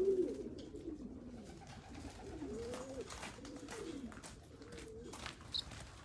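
Racing pigeons cooing: several low, rising-and-falling coos one after another, with a few sharp clicks near the end.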